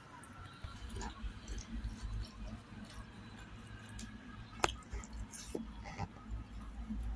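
Close-up chewing and fingers mixing rice on a plate, with scattered small clicks and a low rumble; one sharper click about four and a half seconds in.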